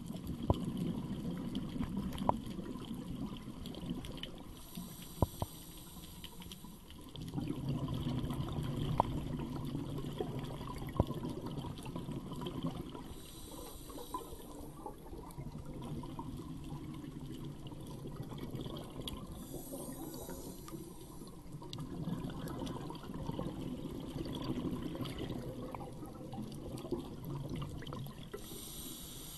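Scuba diver breathing through a regulator underwater: a short hissing inhale through the demand valve about every seven to eight seconds, each followed by a long bubbling exhale. A few sharp clicks are scattered through it.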